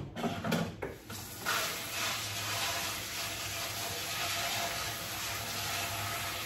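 Kitchen sink tap turned on about a second and a half in and left running in a steady hiss of water, after a short clatter of dishes and a mesh strainer being handled.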